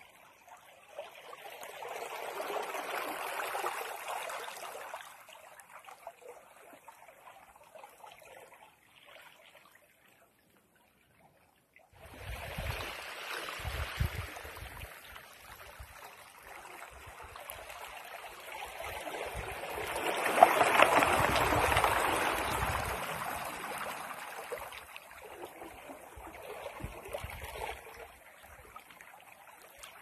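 Small sea waves washing in over rocks and pebbles at the water's edge, swelling and ebbing several times, with the loudest wash a little past the middle. A moment of near silence breaks in shortly before halfway.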